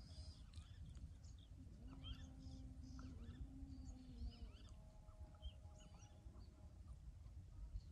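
Faint outdoor lakeside ambience: many short, scattered small-bird chirps over a low wind rumble, with a faint steady hum in the middle.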